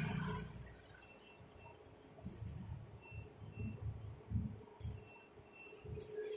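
Steady high-pitched insect chirring, like a cricket chorus, with irregular low thuds underneath.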